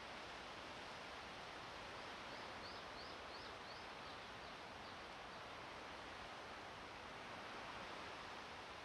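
Steady, quiet wind noise outdoors. A couple of seconds in, a bird gives a quick run of about five high chirps.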